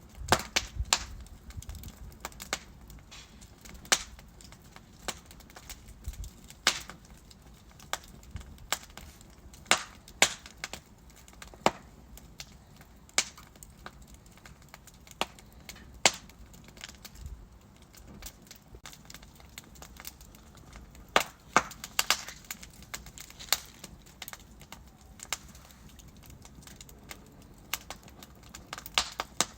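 Wood logs burning in a fireplace, crackling with sharp pops at irregular intervals, a quick cluster of them a little past the middle, over a faint low rumble from the flames.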